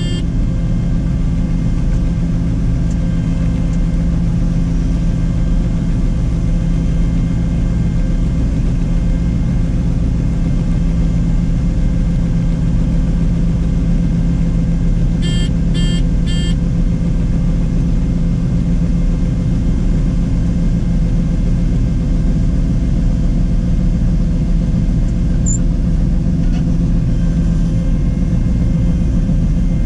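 Combine harvester running steadily, heard from inside the cab, while it unloads soybeans through its unloading auger with the separator switched off. A few quick electronic beeps sound about halfway through.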